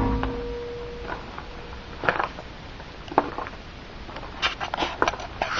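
The Honda 600's steel hood, slammed shut just before, rings out faintly and fades over about two seconds. Then come light, irregular footsteps crunching on gravel, closer together around the fifth second.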